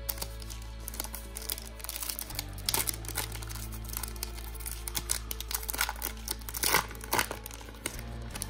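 Foil wrapper of a Topps Chrome baseball card pack crinkling and tearing as it is ripped open by hand, in irregular crackles with a few louder crinkles.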